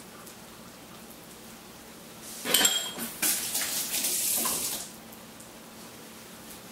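A sharp clatter of a kitchen utensil at the sink with a brief metallic ring, then a kitchen tap running for about a second and a half as hands are rinsed.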